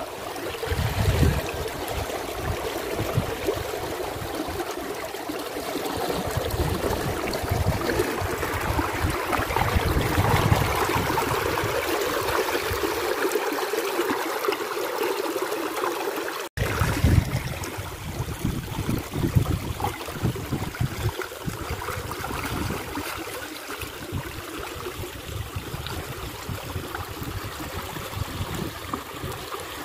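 Shallow water splashing and trickling as men wade and handle a bamboo-and-net fish trap, steady throughout with a brief cut about halfway through.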